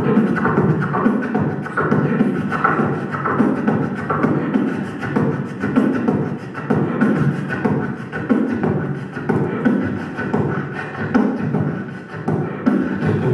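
A man beatboxing solo into a handheld microphone: a continuous, rhythmic stream of mouth-made drum sounds.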